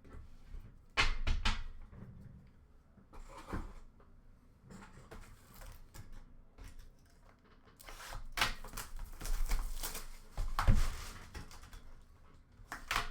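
Hands handling trading cards and packs on a table: scattered light knocks and clicks, with a longer stretch of shuffling and sliding from about eight seconds in.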